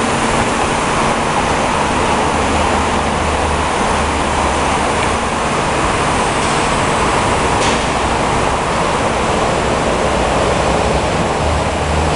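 Steady machinery noise in a workshop: an even rushing sound with a low hum underneath that swells and fades a few times.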